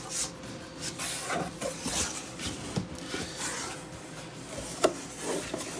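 Cardboard box being handled and its flaps opened: irregular rubbing, scraping and rustling, with small knocks and one sharp knock near the end.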